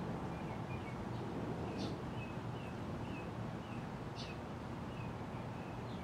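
Moss Heirloom Olympus ceiling fan running with a steady low hum and air noise. Small birds chirp repeatedly over it.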